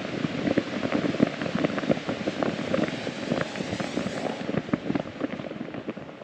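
Volcán de Fuego eruption: a dense crackle of many small impacts, rocks and lava fragments landing and tumbling on the cinder slope, loudest at first and slowly fading.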